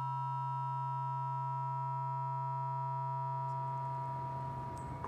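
A steady electronic tone, a high pitch over a low hum, holding and then cutting off near the end.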